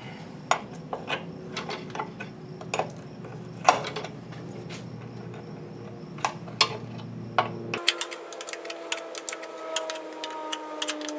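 Ratchet wrench clicking as it runs in the bolts that mount the engine to the tractor. Single sharp clicks come at first, then about eight seconds in a quick run of several clicks a second.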